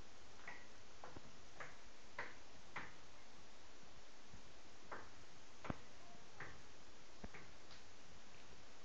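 Water dripping: about a dozen separate drops falling at uneven intervals, each a short click, some with a brief pitched plink.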